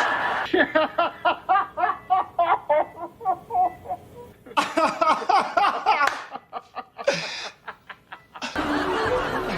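A person laughing in quick repeated bursts, about four a second, then more broken bursts of laughter. Music comes in near the end.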